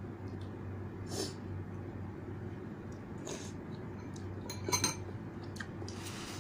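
Eating noodles with a metal spoon and fork: two short slurps of noodles, then a quick cluster of sharp metallic clinks as the cutlery strikes the bowl, the loudest sound, just before the end. A steady low hum runs underneath.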